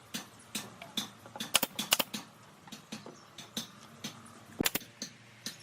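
A series of sharp knocks or taps, irregular at roughly two a second, with a few louder strikes about one and a half, two, and four and a half seconds in.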